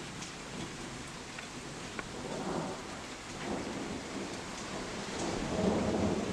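Steady rain falling, with thunder rumbling over it in low swells that build to a louder roll near the end.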